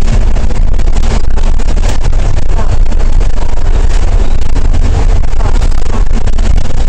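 Alexander Dennis Trident E500 double-decker bus with a Cummins ISL8.9 diesel engine, driving along and heard from inside on the upper deck: a steady, loud low rumble of engine and road noise.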